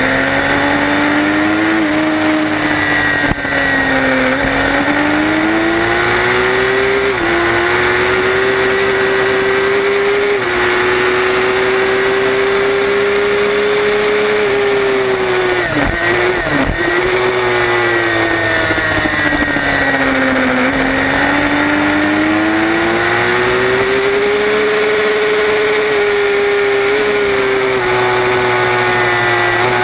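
Racing motorcycle engine revving hard on a track lap, heard from onboard with wind rushing over the camera: the note climbs and drops sharply at upshifts about 7 and 10 seconds in, holds high on the straight, falls away under braking with quick downshift blips around 15 to 16 seconds in, then climbs again and shifts once more near the end.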